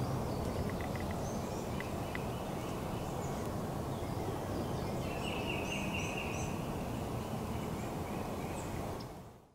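Wild turkey gobbling once, a rapid rattling call about five seconds in, over a steady low outdoor background with small birds chirping high and briefly.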